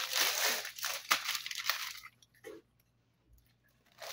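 Clear plastic packaging sleeve crinkling and rustling as a soundbar is slid out of it, stopping about two seconds in.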